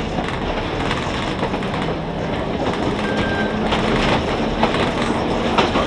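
Vintage electric streetcar running along the track, heard from inside its cab: a steady rumble of wheels on rail with a low hum and occasional clacks over rail joints.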